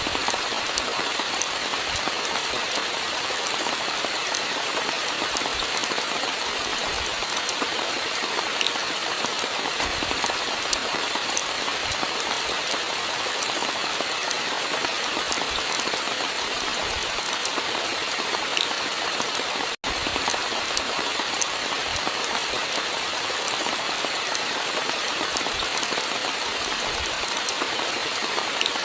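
Steady rainfall, a dense even hiss with many small drops ticking crisply on top and an occasional soft low thud. The sound cuts out for an instant about twenty seconds in.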